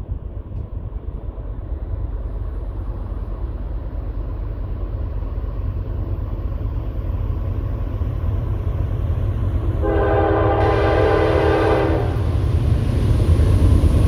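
Norfolk Southern GE Dash 9 diesel locomotives working a freight train up a grade, a steady low rumble growing louder as the train approaches. About two-thirds of the way in, the lead locomotive sounds one air-horn blast of about two seconds, a chord of several tones.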